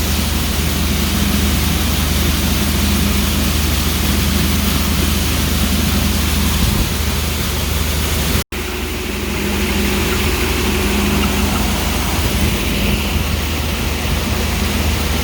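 Tractor engine running steadily under way, a constant low hum under a broad rush of noise. The sound drops out for an instant about eight and a half seconds in.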